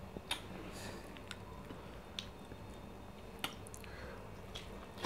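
Faint, scattered wet clicks and smacks of eating by hand: chewing, and fingers squishing a large piece of meat coated in slimy ogbono soup as it is lifted from the plate.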